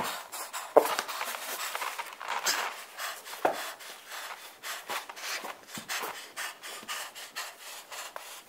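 Rustling and shuffling of a person moving close to the camera, broken by a few sharper knocks in the first four seconds.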